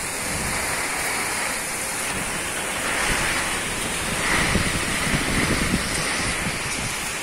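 Typhoon wind and heavy rain: a steady rushing noise, with gusts buffeting the microphone that swell louder about three seconds in and again between four and six seconds.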